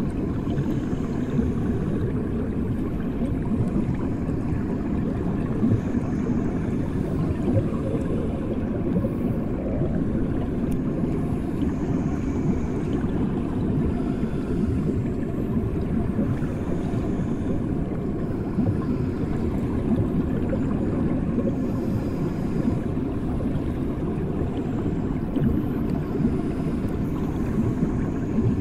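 Bath water heard from below the surface: a steady, muffled low rumble, the way sound reaches ears submerged in a bathtub.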